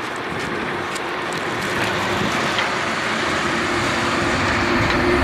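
Remote-control monster truck running, a steady noise of its electric motor and tyres that grows slowly louder, with a low steady hum coming in near the end.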